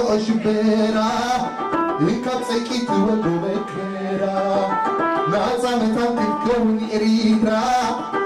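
Live Eritrean band music: a male singer sings long, held notes that slide into pitch, backed by guitar and the band.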